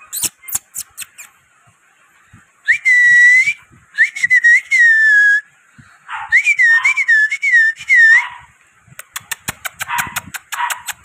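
A person whistling in three short, wavering phrases, with a few quick clicks before them and a fast, even run of clicks, about five a second, near the end, as sounds to catch a toy poodle puppy's attention.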